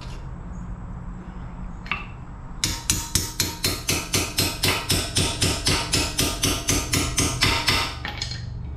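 Hammer tapping on metal: about twenty evenly spaced strikes at roughly four a second, starting a few seconds in, tapping the ball joint's lock bolt into place through the steering knuckle.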